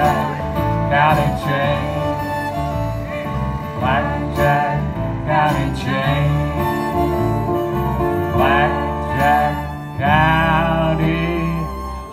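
Bluegrass band playing an instrumental passage with no singing: fiddle with sliding notes over strummed acoustic guitars and bass.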